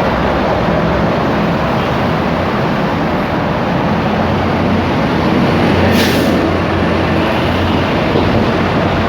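Steady loud rumble of passing motor vehicles, with one short sharp click about six seconds in.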